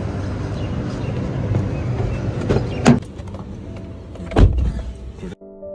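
Street ambience with traffic noise, then a car door being opened with a sharp click about three seconds in and pulled shut with a heavy thud about a second and a half later. Piano music starts near the end.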